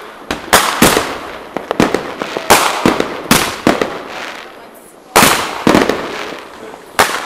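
Fireworks and firecrackers going off in a rapid, uneven string of sharp bangs, each echoing away. There is a short lull near the middle before a loud bang about five seconds in.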